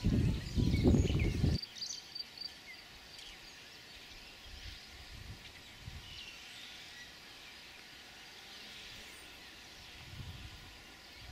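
Outdoor ambience with faint, scattered bird chirps over a steady background hiss, and soft low rumbles of wind on the microphone now and then. A louder, gusty low rumble fills the first second and a half and cuts off abruptly.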